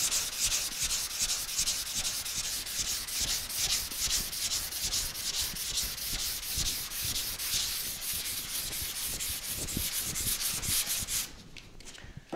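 Sandpaper on a hand sanding pad rubbing fast back and forth over a primed car fender, in rapid, even strokes that stop about a second before the end. The primer is being sanded down through a guide coat to level the panel and find low spots.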